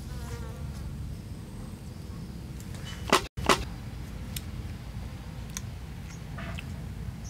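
Steady low outdoor rumble with a brief buzz near the start, like a passing insect. About three seconds in come two sharp clicks a split second apart, with the sound cutting out completely for an instant between them at an edit.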